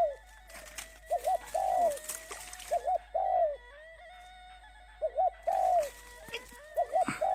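A dove cooing: a repeated phrase of two short notes followed by a longer note, four times.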